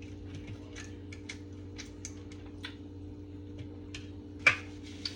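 Soft eating sounds, small scattered clicks of chewing and light utensil contact, over a steady low electrical hum, with one sharper click near the end.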